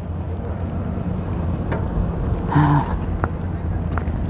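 Steady low rumble of wind and tyre noise from a bicycle moving over brick paving. A short pitched tone sounds about two and a half seconds in, and a few faint clicks are heard.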